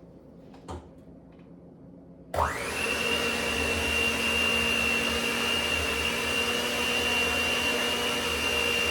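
Electric mixer switched on about two seconds in, its motor whine rising quickly to speed and then running steadily while beating boiled sweet potatoes, until it cuts off suddenly at the end. A small knock sounds shortly before it starts.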